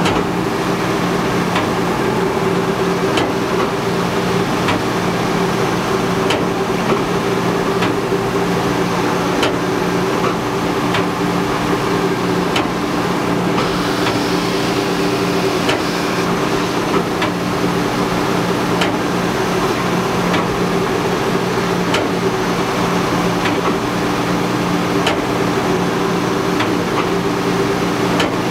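Wide belt sander running with a steady hum, with faint ticks about once a second. A slightly brighter hiss rises for a couple of seconds about halfway through.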